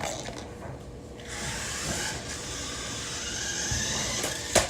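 Remote-control stunt car's motor whirring steadily as it drives and spins, starting about a second in, with a sharp knock near the end.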